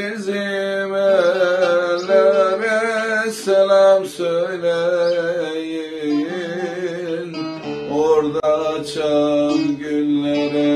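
A man singing a Turkish folk song with wavering, drawn-out notes, accompanying himself on a bağlama (long-necked saz) strummed with a pick.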